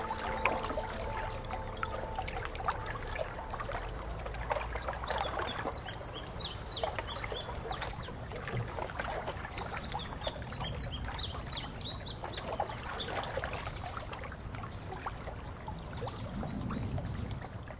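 Waterside ambience: water lapping and trickling, with small birds chirping in quick runs of calls about five seconds in and again about ten seconds in.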